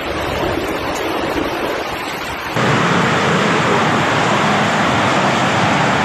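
Strong storm wind, with rain, rushing as a loud, even noise. About two and a half seconds in, it cuts abruptly to a louder, hissier rush.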